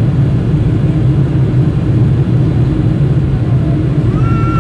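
Steady, loud roar of a Boeing 747-400's Pratt & Whitney PW4000 turbofans and airflow heard inside the cabin during the climb after takeoff, a deep, even rumble.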